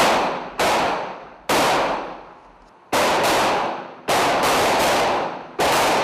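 Rifle shots from several shooters on a firing range: about nine sharp reports at uneven intervals, some in quick pairs or threes, each dying away slowly in an echo.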